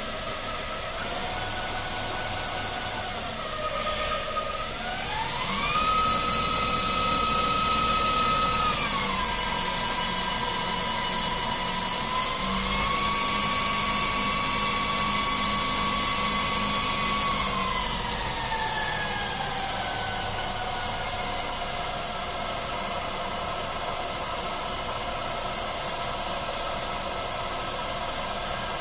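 Small CNC lathe turning a brass part, its motor whining steadily and stepping in pitch as the spindle speed changes. The pitch rises and is loudest about five seconds in, dips and holds again, then glides down about eighteen seconds in and settles lower.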